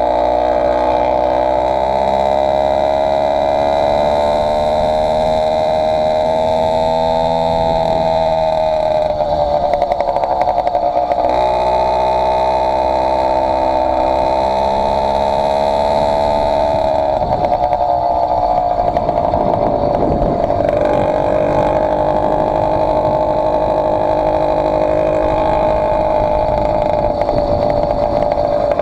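Two-stroke motorized-bicycle kit engine, with an AF80 crank and a 49 mm cylinder, running hard under way. Its pitch sags and climbs with the throttle, dropping twice and running lower near the end. On this run it is fitted with a doubled base gasket, which the owner says cost it power.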